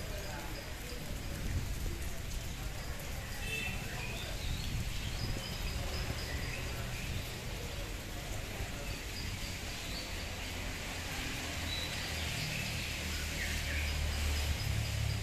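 Steady hiss of rain falling, with birds chirping briefly now and then and a low rumble underneath.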